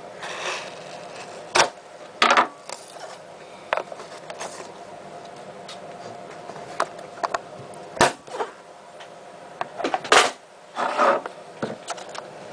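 A sealed cardboard trading-card box being worked open by hand: scattered clicks and scrapes with a few short rustling tears.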